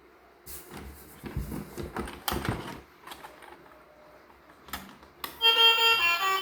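A quick run of light clicks and knocks for a couple of seconds, a few more scattered after, then music with a melody starts about five seconds in.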